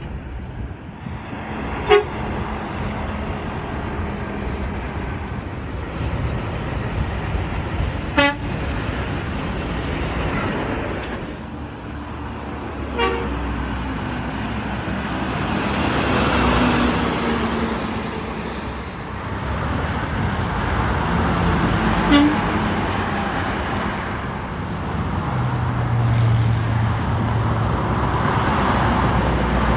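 Road traffic, cars and trucks passing one after another, the noise swelling and fading as each goes by, with a few brief sharp pops standing out above it.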